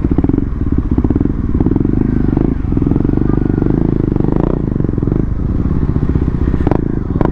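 KTM Duke 390's single-cylinder engine running through an aftermarket barrel exhaust at low road speed, a steady rapid beat that dips briefly twice.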